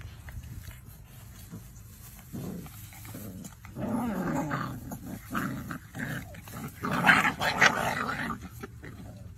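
Dalmatian puppies growling and crying out as they play-fight, the calls coming in short bursts and loudest about seven seconds in.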